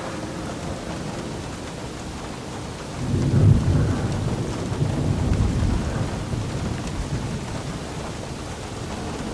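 Steady rain with a roll of thunder that rumbles up about three seconds in and slowly dies away over the next few seconds.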